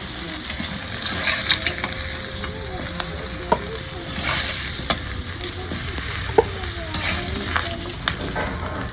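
Potato pieces frying in hot oil, sizzling steadily, with a few sharp clicks and scrapes of a utensil against the pan as the fried potatoes are lifted out.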